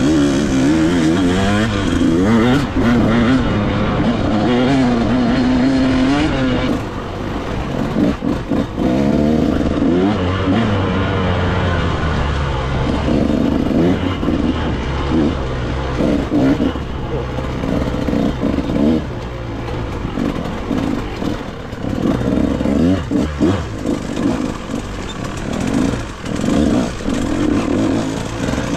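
KTM dirt bike's engine heard close up from the bike itself, revving up and down through the throttle. The revs rise and fall smoothly for the first several seconds, then come in short, choppy blips with a few knocks from the rough trail.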